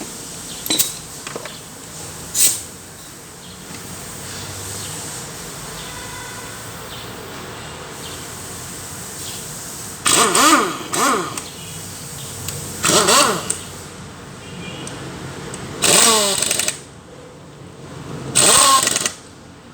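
A small engine revving in short bursts, four times in the second half, the pitch rising and falling with each rev, over a steady background hum; a couple of sharp clicks come in the first few seconds.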